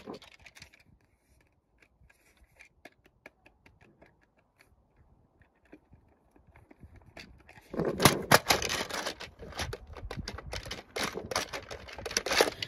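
Hard plastic toy telephone being handled and its dial buttons pressed: faint scattered clicks at first, then from about eight seconds in a dense, loud clicking and clattering of plastic.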